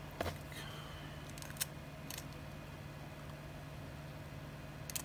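A few short sharp clicks and crackles as a small piece of Kapton tape is handled and snipped with small cutters, over a steady low hum.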